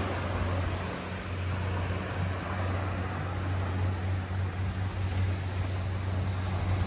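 A steady low engine drone, with a wash of small waves breaking on the sand.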